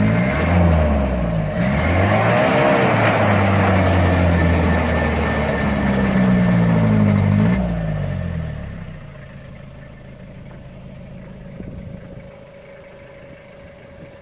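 Toyota Hilux 2.8 four-cylinder diesel engine revving up and down several times under load as the pickup, stuck with its rear wheel dug into loose sand, tries to pull out. About eight seconds in the revs fall away and the engine runs much more quietly at idle.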